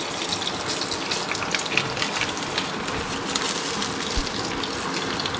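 Popcorn kernels sizzling in hot oil at the bottom of a pressure cooker pot, a steady hiss with fine crackles, the kernels not yet popping.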